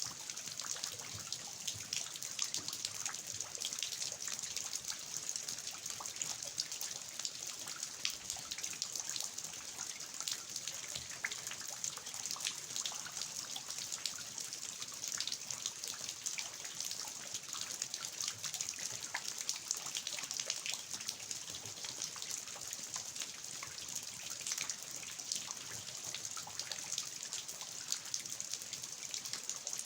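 Steady rain falling in a garden, with water dripping and trickling off the eaves of a traditional house: a constant hiss dotted with many small drop ticks.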